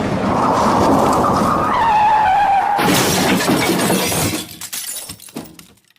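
Car tyres skidding in a long screech that dips slightly in pitch, then a sudden crash nearly three seconds in. Breaking glass and debris clatter down after it and die away over the next couple of seconds.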